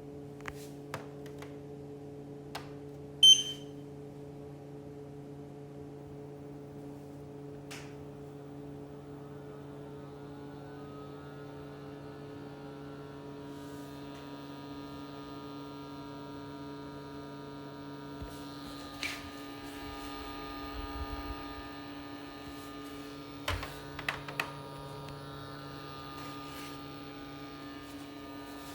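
Xiaomi Mi Air Purifier 3H running with a steady hum, with a short beep about three seconds in. About ten seconds in, a set of higher whining tones rises in pitch and then holds. This is the strange noise the owner ties to a fault in its pollution sensor.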